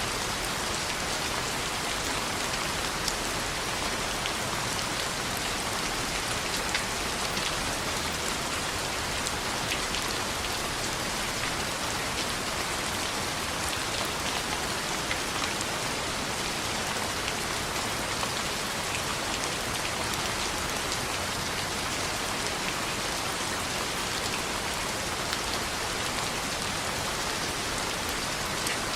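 Steady rain falling on a window: an even hiss with scattered light taps, unchanging throughout.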